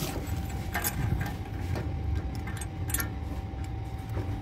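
A few light metallic clinks and taps as a steel mounting bracket and its long bolts are handled and fitted into a scooter's fuel-filler opening. They come over a steady low rumble and a faint constant hum.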